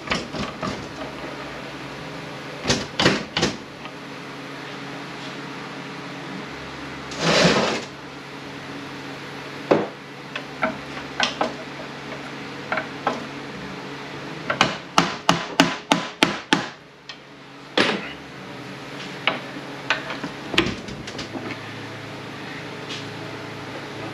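Tapping and knocking on the metal parts of an FW6AEL automatic transmission as it is worked apart, with scattered single knocks and a quick run of about nine taps past the middle. A short rush of noise, about half a second long, comes about a third of the way in.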